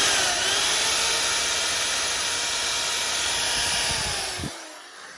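Electric drill boring a pilot hole into a wooden piece of the chair, its whine dipping and rising under load, then winding down and stopping about four and a half seconds in. The pilot hole is drilled so the wood does not split when the screw goes in.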